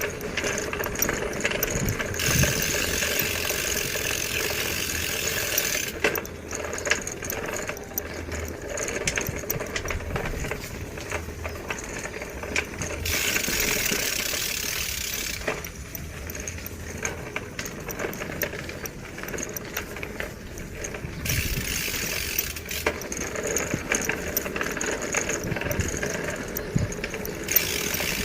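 A bicycle being ridden: frequent rattling and clicking from the bike's parts and freewheel. Stretches of hissing noise, each a few seconds long, come and go several times.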